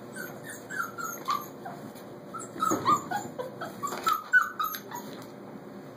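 Four-week-old puppies whimpering and yipping: a string of many short, high-pitched squeaks that bend up and down, the loudest a little past halfway.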